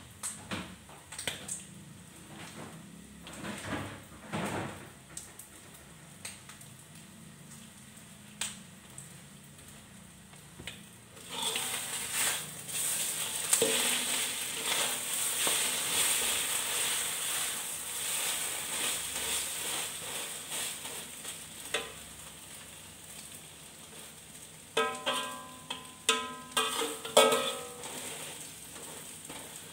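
Metal spatula knocking and scraping in a steel wok of frying omelette pieces, a few scattered knocks at first. About eleven seconds in a loud sizzle starts suddenly and slowly fades. Near the end the spatula strikes the wok several times in quick succession with a ringing tone.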